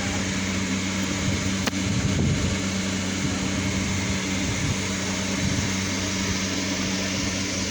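Steady low hum with a constant hiss over it, broken by a single sharp click about one and a half seconds in.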